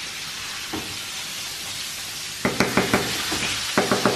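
Metal spoon scooping cream cheese and tapping it off against a metal saucepan of mashed potatoes: a quick run of ringing clinks, about three or four a second, starting about two and a half seconds in. Before and under it, a steady hiss.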